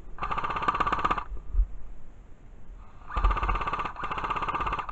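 Airsoft rifle firing on full auto: a burst of about a second, then after a pause a longer burst broken into about three short strings, each a fast, even rattle of shots.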